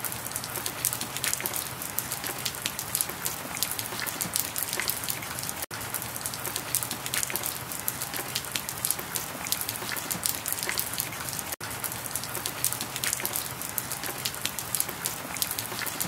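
Steady rain: a dense stream of small drops hitting a surface, with two very brief gaps about six seconds apart.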